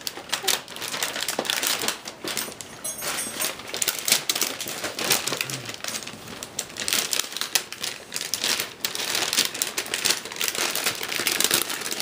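Wrapping paper crinkling and rustling in quick irregular crackles as a present is unwrapped by hand.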